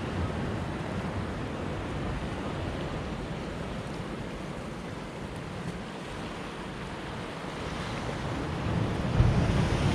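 Sea waves washing on a rocky shore in a steady rush of noise, with wind buffeting the microphone, which grows louder and deeper near the end.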